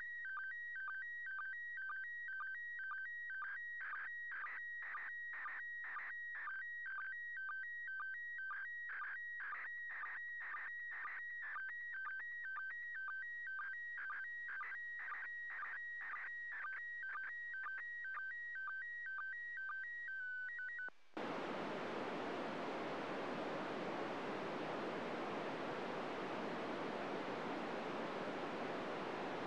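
Slow scan television (SSTV) signal from the International Space Station received on 145.800 MHz FM: warbling tones switching between two pitches, with a regular pulse about twice a second, as the PD120 image is sent. About twenty seconds in the signal cuts off suddenly and gives way to steady FM radio static.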